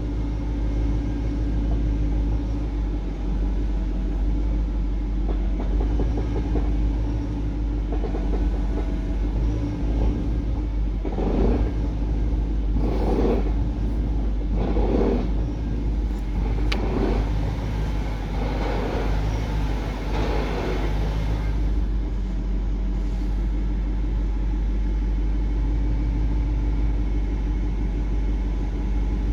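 Car engine idling with a steady low rumble. From about eleven to twenty-one seconds in, about six swelling whooshes come roughly every one and a half to two seconds, with a single sharp click in the middle of the run. This fits the steering being turned on a BMW whose Active Steering sticks and clicks when turned, mainly to the left.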